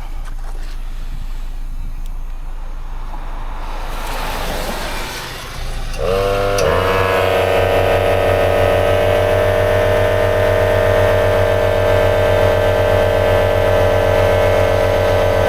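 Air compressor motor starts about six seconds in, sagging briefly as it takes the load, then runs with a steady hum while inflating a low tire; a hiss comes before it starts.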